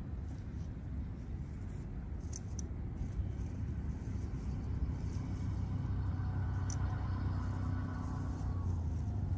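A motor vehicle's engine hum over a low rumble, growing slowly louder from about four seconds in, with a few faint clicks.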